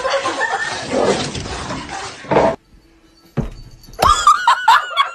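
A dense jumble of noise, then after a sudden cut a thump and a quick run of short, high, arching cries, about six in just over a second: a cat meowing repeatedly.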